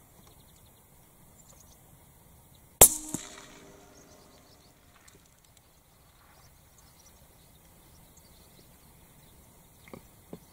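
A single rifle shot, a sharp crack about three seconds in, followed a third of a second later by a smaller crack, with a brief ringing tail. Two faint clicks come near the end.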